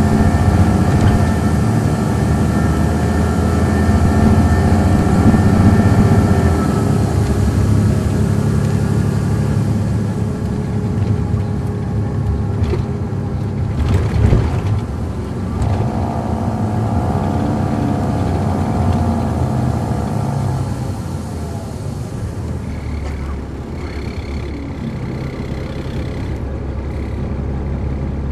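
Caterpillar C13 ACERT diesel engine of an MCI D4500CL coach, heard from inside the bus as it drives. The engine note rises and falls and drops in pitch a few times. There is a single knock about halfway through, and the engine eases off and runs quieter for the last several seconds.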